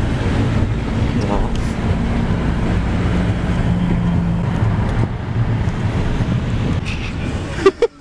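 Steady engine and road noise heard from inside a moving car's cabin. It cuts off abruptly near the end.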